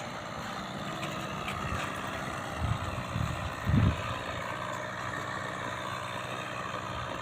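Two-stroke O.S. .55 glow engine of a flying RC model airplane, running steadily at a distance, with a few low thumps on the microphone in the middle.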